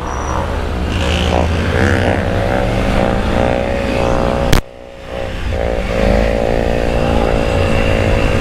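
Motorcycles riding on a street: the rider's Triumph Tiger 900 three-cylinder engine pulling in second gear as it picks up speed, with other motorcycles revving nearby. About halfway through there is a sharp click and the sound drops briefly before the engines come back.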